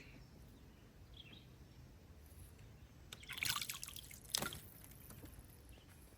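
Water splashing and dripping briefly about three seconds in, followed by a single sharp knock, over a faint steady background.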